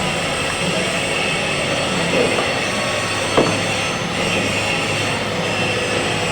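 TIG welding arc on aluminium, buzzing and hissing steadily, with one brief pop about three and a half seconds in.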